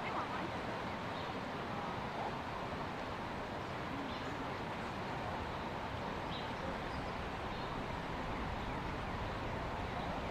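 Steady outdoor background noise: a constant hiss and low rumble at an even level, with a few faint, brief high-pitched chirps scattered through it.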